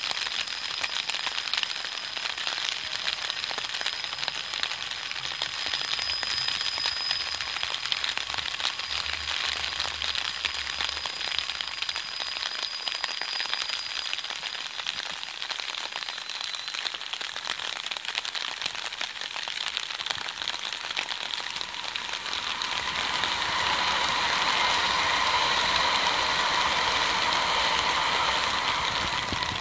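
500 series Shinkansen train running: a steady rushing noise that swells louder after about twenty seconds, with a high whine in it.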